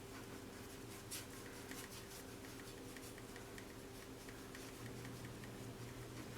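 Paintbrush scrubbing acrylic paint onto a gessoed canvas in criss-cross strokes: faint, repeated scratchy brushing over a steady low hum.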